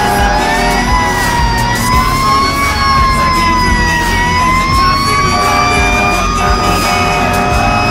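Fire engine siren wailing, its pitch slowly falling and rising.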